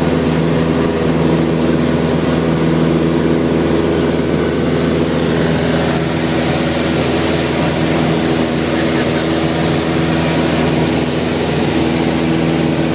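Beechcraft light aircraft's engine and propeller droning steadily, heard from inside the cabin.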